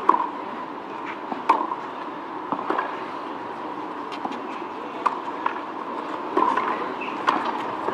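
Tennis ball struck back and forth by racquets in a rally, a sharp pock every one to two seconds over low crowd background.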